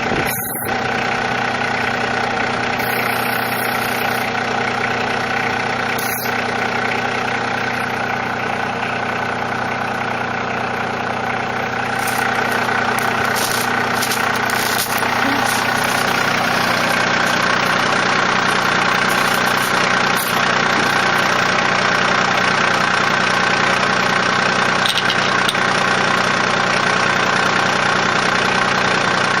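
John Deere 2305 compact tractor's three-cylinder diesel engine idling steadily, growing a little louder about twelve seconds in.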